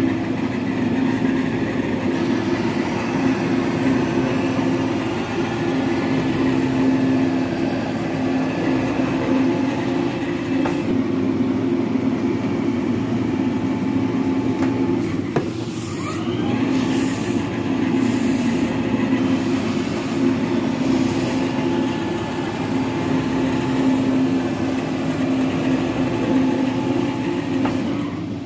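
Metal planer running steadily while it planes the ways of a cast-iron lathe bed. The machine has a constant low hum, with a brief dip and a rising whine about halfway through.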